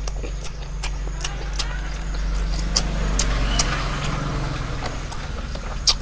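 Close-up chewing of sticky caramelized pork skin and rice, with wet lip smacks and mouth clicks scattered throughout. Under it runs a steady low rumble that swells in the middle.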